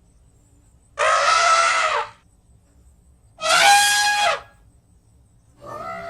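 Elephant trumpeting: two loud brassy blasts about a second each, then a fainter third call starting near the end.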